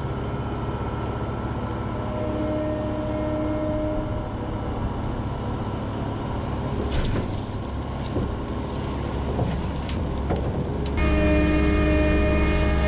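Kubota skid steer's diesel engine running while a bucket of dirt and weeds is tipped into a manure spreader, with several clunks and thuds from about seven to ten seconds in. About eleven seconds in the engine becomes louder and steadier, as heard from inside the cab.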